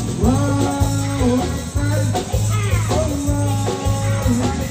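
Live band on a parade float playing loud amplified music: drums and a steady bass beat under a held melody line that slides up and down in pitch.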